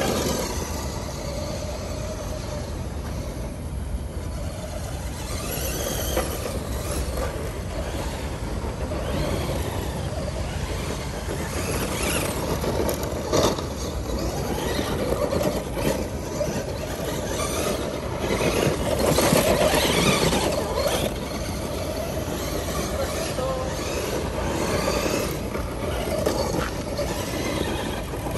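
Radio-controlled 2WD monster truck driving hard on dirt and grass: its drive motor and gears whine, rising and falling with the throttle, while the big tyres scrabble and throw dirt. A few sharp knocks come around the middle as it hits bumps.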